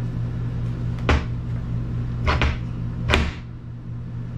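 Sharp knocks from the steering rack parts being handled and worked on: one about a second in, a quick double about two seconds later, and a last one near the end.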